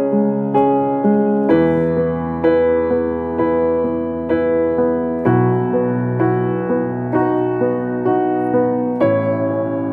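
Background piano music: soft keyboard chords struck about twice a second, the harmony changing every few seconds.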